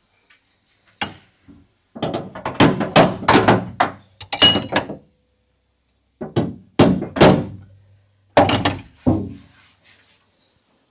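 Hammer blows on the steel rear panel of a classic Lancia coupé, struck from inside the boot: one knock about a second in, then two quick runs of knocks, the first between about two and five seconds in, the second between about six and nine. The panel is being knocked out while a chained clamp holds it under pull.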